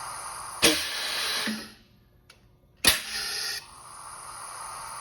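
Compressed air in a pneumatic hot dimpling machine: the ram's air valves shift with sharp bangs, each followed by hissing air. There is a near-silent pause about two seconds in, then a bang and steady hiss as the cylinders hold pressure.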